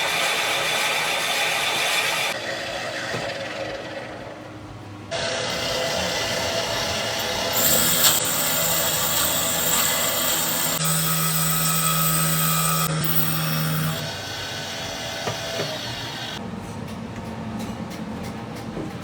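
Workshop power tools and machinery running in a series of short clips that cut abruptly from one to the next, each with its own steady hum or high whine.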